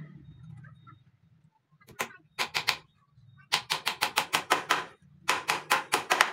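Small hammer driving nails into the wooden batten frame of a wire-mesh sand sieve: sharp taps in quick runs of several a second, with the longest run of about nine taps in the middle.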